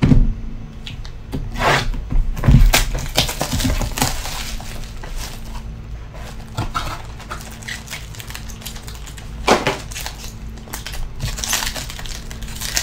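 Plastic wrapping crinkling and tearing as a sealed box of baseball cards is unwrapped and the pack inside is ripped open, with a few knocks from the box being handled.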